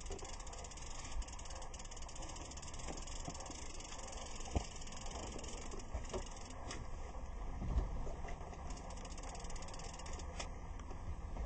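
Fishing reel clicking rapidly as a hooked catfish is fought on the rod, the fast ticking fading out about halfway through, over a steady low rumble with a few light knocks.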